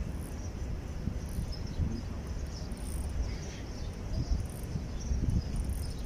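Steady low rumble of wind on the microphone, with scattered faint, high, short chirps over it.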